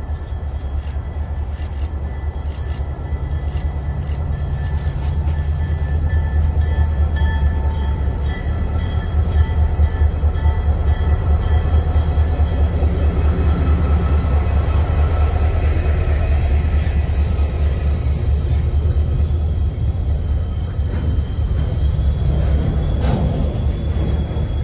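Low rumble of a GP40-2 diesel freight locomotive with its 16-cylinder EMD engine, growing louder over the first ten seconds and then holding steady as the train comes near. Music plays over it.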